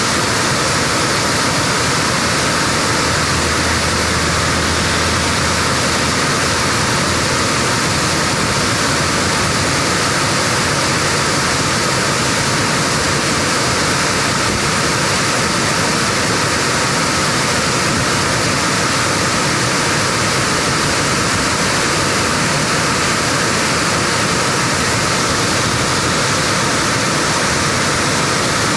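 Waterfall rushing close by: a loud, steady roar of falling water with no change.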